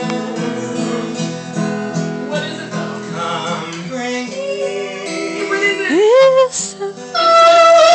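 Acoustic guitar strummed, its chords ringing on. About six seconds in a voice slides up in pitch, and near the end a loud, high held voice note comes in over the guitar.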